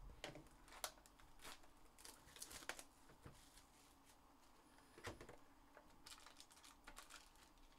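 Faint crinkling and rustling with scattered light clicks: a cardboard trading-card box being opened and its foil-wrapped card packs handled.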